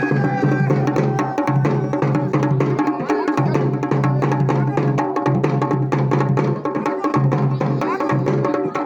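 Garhwali dhol and damau drums played together in a fast, dense rhythm, with a steady low pitched note underneath that breaks off every second or two.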